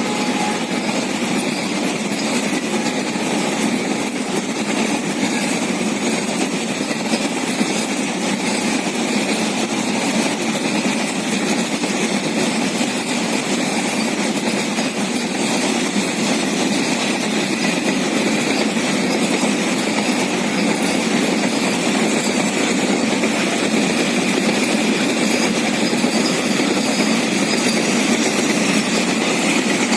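Double-stack container freight train running past, a steady, even noise of wheels on the rails and rattling wagons.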